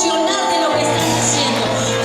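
Worship music with sustained held chords; a low bass note comes in about three-quarters of a second in.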